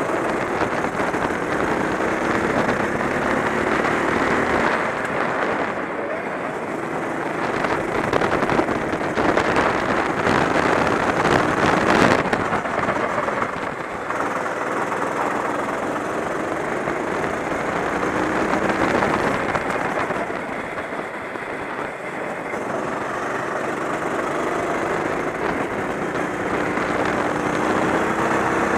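Rental kart engine running hard, heard onboard, its pitch sliding down and back up as the kart lifts and accelerates through the corners. A sharp knock about twelve seconds in.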